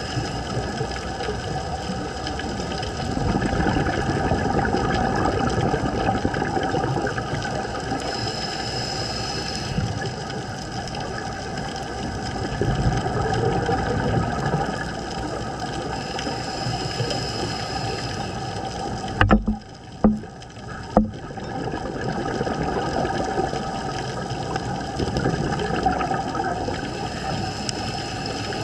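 Muffled underwater noise picked up by an action camera in its waterproof housing: a steady rush of water and bubbles that swells louder for a few seconds at a time, every few seconds. Three sharp clicks come about two-thirds of the way through.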